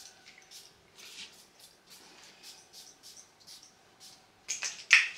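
Perfume atomizer spraying: a run of faint short hisses, then two sharp, louder spritzes near the end.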